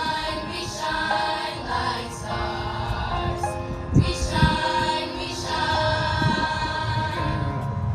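Music with a choir singing sustained notes.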